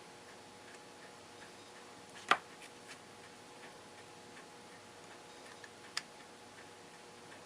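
Faint small clicks of tools working on a Westclox Big Ben alarm clock movement as the balance wheel's cup bearing is loosened, with two sharper clicks about three and a half seconds apart.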